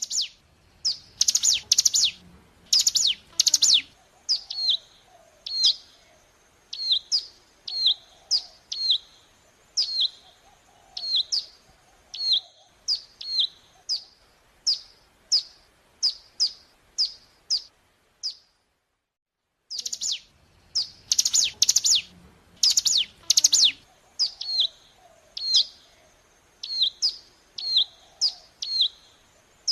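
Ciblek gunung (a prinia) song played as a lure recording. A rapid burst of loud calls gives way to a long run of short falling chirps, about two a second. The sequence stops about halfway through and starts again after a brief pause.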